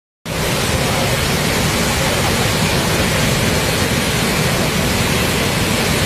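A waterfall in full spate, a torrent of brown floodwater crashing down: a loud, steady roar of falling water.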